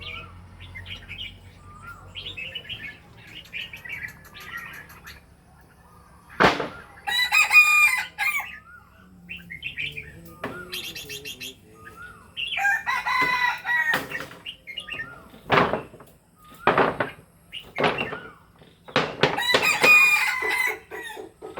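A rooster crowing three times, each crow about a second long and spaced several seconds apart, with small bird chirps and a few short, sharp sounds in between.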